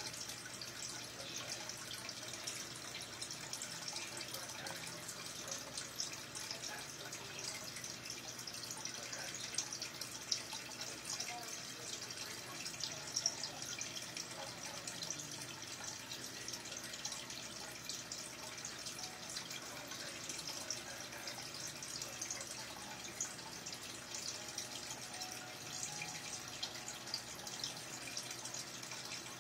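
Aquarium aeration: air bubbles rising and breaking at the water surface, a steady trickling fizz with many small pops throughout.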